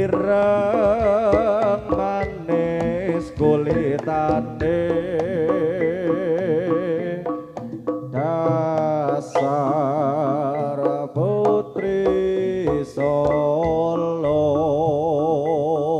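Live jaranan gamelan music: a high lead melody with a wide, wavering vibrato carried over drum strokes and metallophones, with a brief break in the melody a little past the middle.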